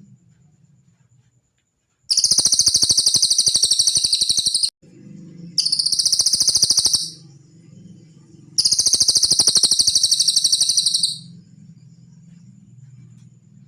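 Cililin songbird singing three loud, high-pitched rapid trills, each lasting one and a half to two and a half seconds, with short pauses between them.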